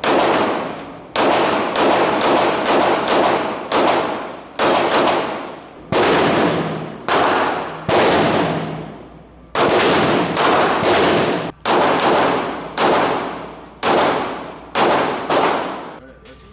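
Gunfire at a shooting range: about two dozen shots at an uneven pace, each sharp crack trailing off in an echo.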